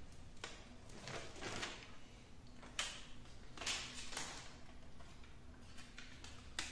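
Adhesive aluminium foil tape being handled: its backing peeled off and the foil rustling and crinkling in several short scrapes. A couple of sharp clicks come as it is pressed onto the refrigerator's sheet-metal back.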